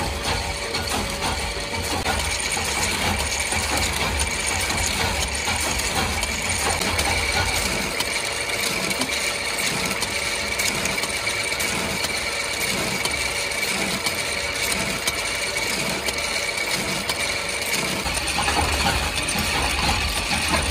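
Screw-shell forming machine for lamp holders running: a steady, fast metallic clatter of cams, gears and thread-rolling parts, with a steady high tone over it.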